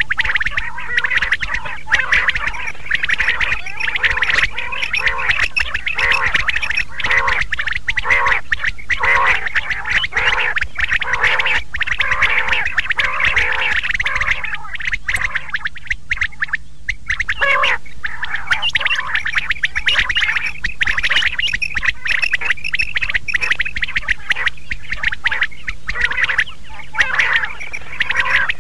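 Quails calling in a loud, dense chorus of overlapping, quick repeated calls, easing off briefly a little past halfway. A steady low hum runs underneath.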